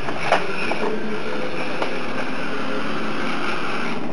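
The small electric motors and plastic gearbox of a 1/32-scale mini RC crawler whine steadily as it drives. There is a single knock about a third of a second in.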